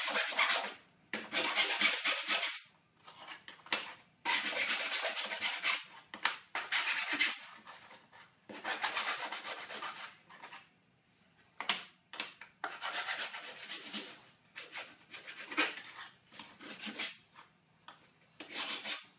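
Hand file rasping along the cut edges of small pieces of sheet-steel trunking to deburr them and remove sharp edges. A run of separate file strokes with short pauses between: the first ones last a second or two, and those in the second half are shorter and sharper.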